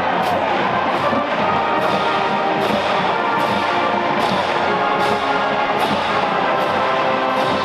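Marching band playing: brass holding sustained chords over percussion hits that land on a steady beat.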